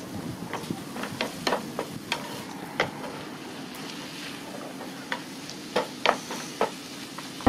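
Diced onion, green pepper, carrot and ground meat sizzling in a frying pan while a spatula stirs them, with irregular sharp clicks as the spatula knocks and scrapes against the pan.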